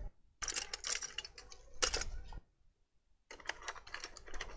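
Small hard tools and plastic parts clicking and rattling as they are rummaged through while searching for a plastic prying clip, in two bursts of rapid clicks with a short pause between them.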